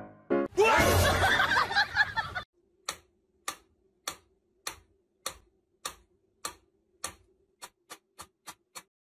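Mechanical pendulum metronome ticking, one tick about every 0.6 seconds, then faster ticks about three a second near the end. It follows a loud, noisy burst of about two seconds at the start.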